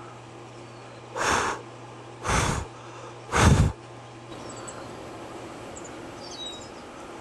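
Three short puffs of breath on the microphone, about a second apart, over a steady low hum. Faint high chirps of small birds follow in the second half.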